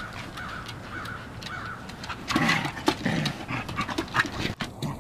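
Two German Shepherds play-fighting: panting and short low vocal sounds from the dogs, loudest a little past the middle, with scattered clicks and scuffles of paws and claws on the deck boards.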